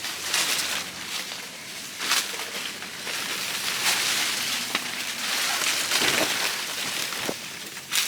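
Rustling and crackling of leaves and brush, with footsteps, as someone pushes through overgrown vegetation; uneven, with sharper crackles now and then.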